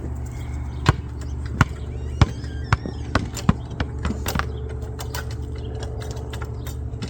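A dozen or so sharp clicks and taps at irregular intervals, from tools and hardware being handled while bolting parts together, over a steady low hum.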